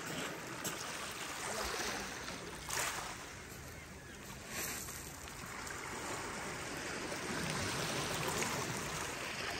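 Small sea waves washing in over a pebble shore and breaking around a low rock, in uneven surges with a couple of brief louder washes in the first half.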